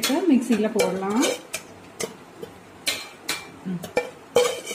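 A metal spoon scraping and clinking against a pan as it stirs a dry roasted coconut-and-spice mixture, about half a dozen separate scrapes and knocks in the second half.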